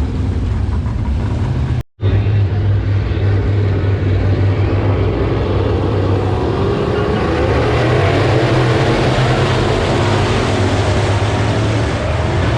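Race car engines running on the speedway track, a steady low drone with the noise swelling louder in the middle. The sound drops out for an instant about two seconds in.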